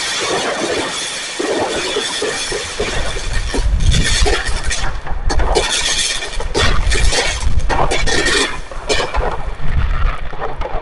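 Fireworks going off: continuous crackling, then from about three seconds in a dense run of bangs and low thuds mixed with crackle, thinning near the end.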